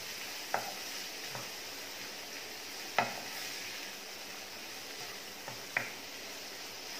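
Chopped onion, capsicum and tomato sizzling steadily in butter in a non-stick kadhai as a wooden spatula stirs them, the spatula knocking against the pan three times, loudest about halfway through.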